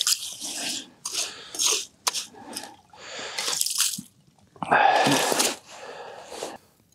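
Ice skimmer scooping slush and ice chips out of a freshly drilled ice-fishing hole: a run of irregular wet crunching scoops with water dripping and sloshing, the loudest about five seconds in.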